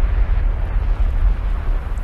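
Wind buffeting the microphone: a loud, uneven low rumble with a steady hiss above it.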